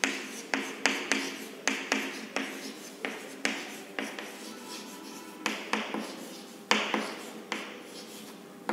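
Chalk writing on a chalkboard: sharp taps roughly twice a second, each followed by a short scratchy scrape as the letters are drawn, with a brief pause about halfway through.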